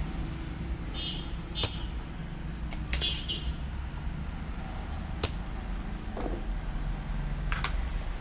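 Work on a TV circuit board while a transistor is being removed: a steady low hum, with a few sharp clicks and two short hisses.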